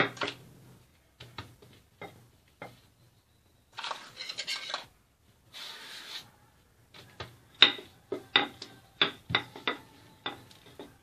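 Hand brushing flour over a stone work surface, with two short rubbing swishes. About seven seconds in, a wooden rolling pin starts rolling a strip of croissant dough thin, knocking against the surface in a quick run, about two to three knocks a second.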